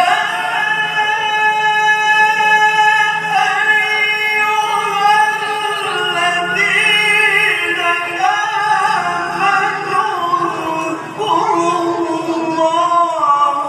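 A man's voice reciting the Quran in the melodic tilawah style into a microphone. It is one long phrase of held, ornamented notes that waver and step in pitch, with a brief break about eleven seconds in.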